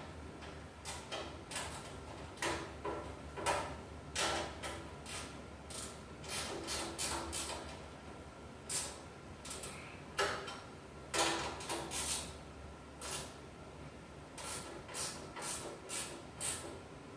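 Irregular metallic clinks and knocks of bandsaw parts and hardware being handled during assembly, a couple of sharp hits a second, some with a brief ring.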